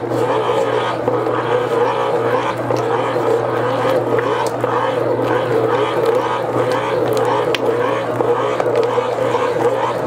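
Electric stand mixer running steadily, its dough hook kneading yeast dough as softened butter is worked in; an even motor drone.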